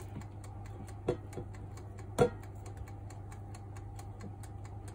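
Tongs clicking twice against an air fryer's perforated basket as plantain slices are lifted and turned, the second click the louder. Under them run a low steady hum and a fast, faint, even ticking.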